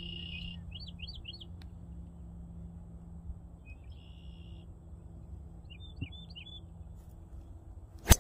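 Small birds chirping in short trills on and off, then near the end a single sharp crack of a Callaway driver striking a teed golf ball.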